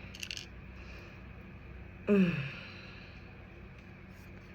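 A person sighs once about two seconds in: a short voiced sigh falling in pitch. There are a few faint clicks near the start.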